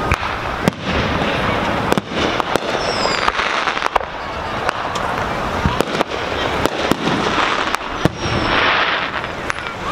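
Aerial firework shells bursting: a run of sharp bangs, roughly one every second, over a steady background rumble.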